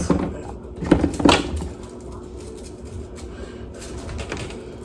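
Rainbow Slinky being handled, its coils clacking: two sharp clicks about a second in, then faint quiet handling.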